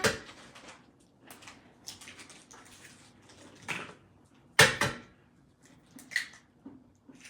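Kitchen handling noises: a few irregular knocks and clatters of dishes and utensils, the loudest a sharp clatter just before five seconds in.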